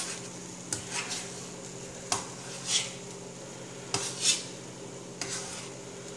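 A spoon stirring in a stainless steel saucepan, clinking and scraping against the sides of the pot in irregular strokes about a second apart.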